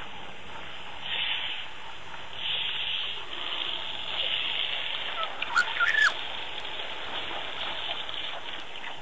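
Outdoor ambience: a steady hiss that swells briefly a few times, with a short cluster of sharp, high squeaks or chirps a little past halfway through.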